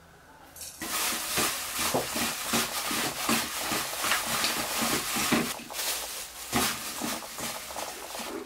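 Gloved hand tossing and squeezing shredded dried pollack in sauce in a stainless steel bowl: crinkling of the thin plastic glove and rustling of the fish strips against the bowl. It starts about a second in as irregular strokes.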